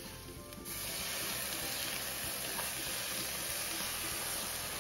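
Dry white wine poured over toasted arborio rice in a hot pan sets off a sudden sizzle just under a second in, which then keeps on steadily: the risotto being deglazed.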